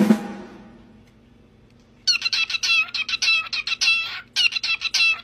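A drum roll ends with a hit right at the start and dies away. About two seconds in, a cockatiel starts a rapid run of high, quickly falling chirps and whistles, pauses briefly about four seconds in, then goes on.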